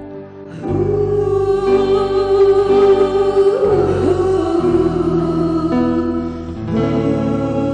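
A live song with singing over band accompaniment. The music grows louder about a second in, with a long held sung note.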